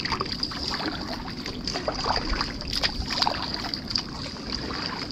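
Kayak paddles dipping and splashing in calm water, with scattered small splashes and drips, over a steady high-pitched whine.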